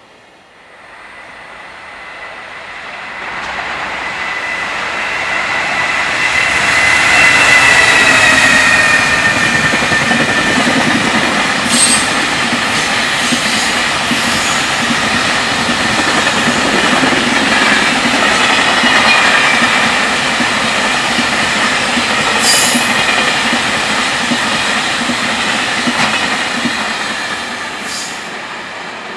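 Fast freight train approaching and passing at speed: a rising rumble with a high whine that dips in pitch as the locomotive goes by about eight seconds in. The long string of container wagons follows with a steady rumble and occasional sharp rail-joint clacks, fading near the end.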